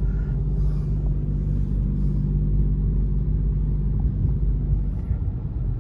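Steady, deep engine rumble with a low hum, heard from inside a car parked on a car ferry as it gets under way.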